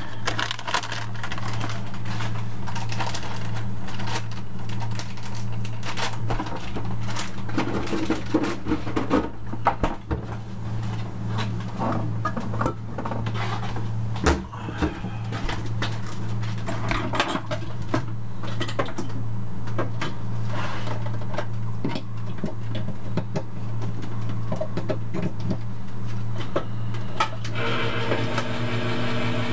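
Kitchen handling noises, rustling and scattered clicks and knocks of things being moved, over a steady low electrical hum; near the end a second steady machine hum with several even tones starts up.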